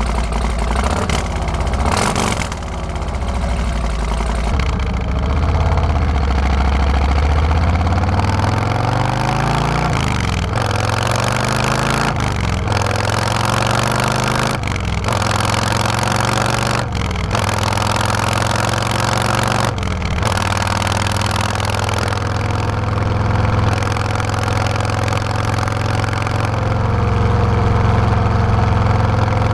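Harley-Davidson Road Glide V-twin engine breathing through TAB Performance 50 Cal slip-on mufflers, blipped and revved several times with its pitch climbing and falling back, then settling into a steady idle for the last third.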